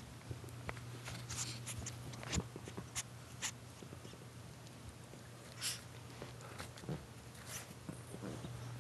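Shorkie puppies scuffling at play on a shag carpet: scattered, irregular short rustles and clicks, with no barks or yelps, over a steady low hum.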